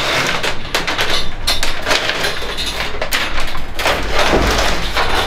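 Bundle of insulated electrical wires being pulled and handled, scraping and rustling against a junction box and conduit, with many irregular clacks and knocks.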